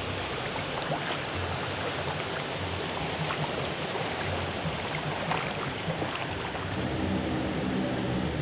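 Shallow river water running steadily, with splashing and sloshing as someone wades through it.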